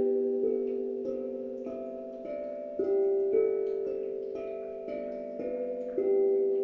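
Slow instrumental music of struck, ringing notes that overlap and fade away gradually, with a fresh note struck every second or so.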